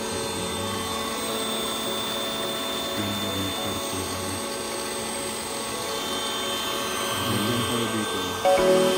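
Background music with a low repeating bass figure under steady held tones, getting louder near the end.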